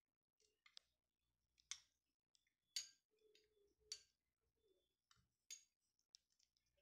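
Faint, scattered clicks and light scrapes of a metal spoon against a bowl as it scoops and stirs soft cooked apples.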